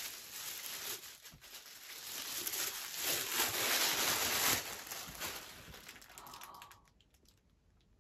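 Thin plastic protective bag crinkling and rustling as a backpack is pulled out of it, loudest around the middle and dying away about seven seconds in.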